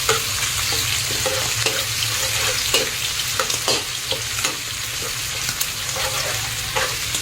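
Rat meat sizzling as it fries in a pan, with scattered short clicks and scrapes of a utensil stirring it.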